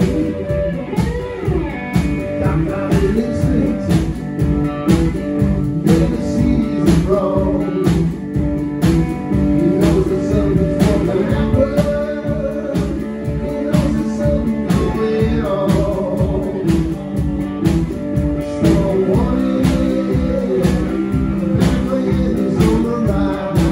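A live blues band playing: archtop electric guitar and drum kit over a steady beat of about two strokes a second, with a man singing.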